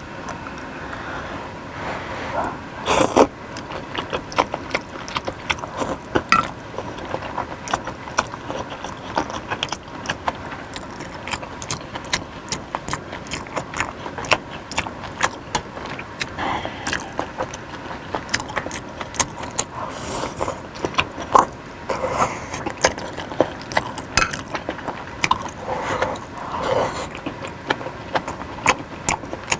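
Close-miked eating of a beef and noodle soup: many quick, irregular clicks and smacks from mouth and utensils, with a few louder clusters.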